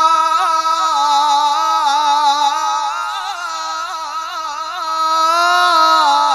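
A male qari's Quran recitation in the melodic tilawah style: one long held vowel, embellished with quick ornamental turns of pitch, swelling again near the end before the voice drops away.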